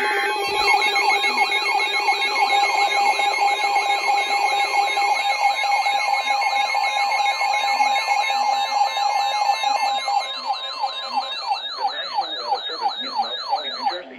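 Electronic emergency-alert tones: a steady two-tone attention signal, which stops about ten seconds in, under several siren tones sweeping up and down about three times a second with a faster warble above them. Near the end the sweeps slow and trail off.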